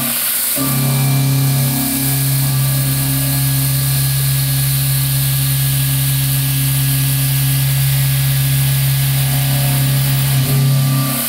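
CNC mill slot-cutting 316 stainless steel with a Kennametal HARVI I TE solid carbide end mill: a steady, loud machining drone with a low hum and higher fixed tones, cutting out briefly just after the start and again near the end.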